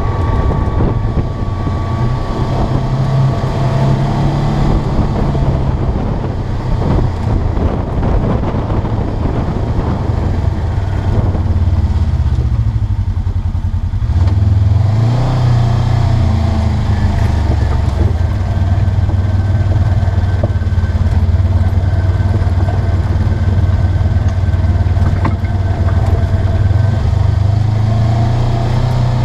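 Polaris RZR 900S side-by-side's twin-cylinder engine running under way on a dirt trail, heard from the cab, its note rising and falling with the throttle. It eases off about twelve seconds in and pulls harder again about fifteen seconds in.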